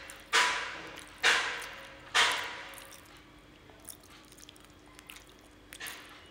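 Sharp bangs from construction work next door, three loud strikes about a second apart, each fading away slowly, then a quieter stretch with faint stirring in a frying pan and one weaker bang near the end.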